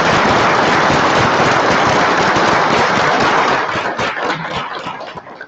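Audience applauding: dense, steady clapping that thins into a few separate claps and fades out over the last two seconds.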